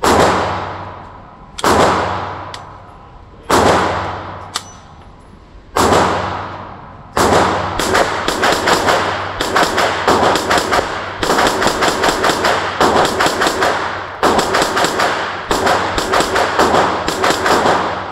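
Gunshots from a 9mm AR-9 pistol fitted with a muzzle brake, inside an indoor range. Four single shots come a second or two apart, each with a long echoing tail. From about seven seconds in, fast strings of shots at several a second run on to the end.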